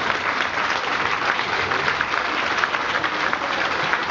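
Audience applauding: many hands clapping in a dense, steady patter in a large hall.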